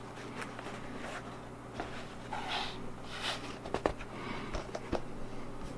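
Quiet handling noise from a stretched canvas print being turned over by hand: a few light knocks and rubbing sounds over a steady low hum.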